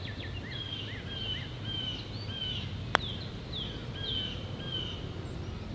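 A single sharp click about three seconds in as a putter strikes a golf ball on a putt, over small birds chirping again and again.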